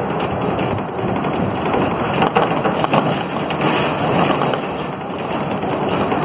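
Interior of a Volvo B9SALF low-floor city bus on the move: steady engine and road rumble with body panels and fittings rattling, and a burst of sharper rattles about two to three seconds in.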